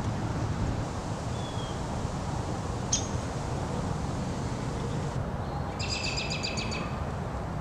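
Songbirds calling over a steady low wind rumble on the microphone: a short high chirp, a sharp high note about three seconds in, then a quick trill of repeated notes near the end.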